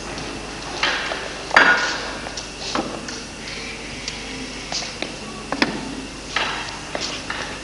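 Irregular knocks and taps on a hard surface, about a dozen of them, unevenly spaced, the loudest about a second and a half in, with some room echo.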